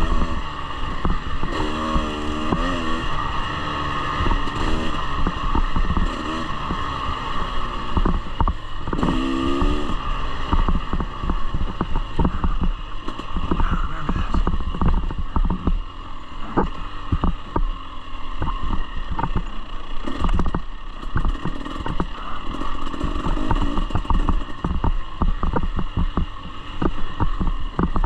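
Husqvarna enduro dirt bike engine running under load on a rough uphill trail. The revs rise and fall about two seconds in and again around nine to ten seconds, with many short knocks and rattles from the bike over the terrain.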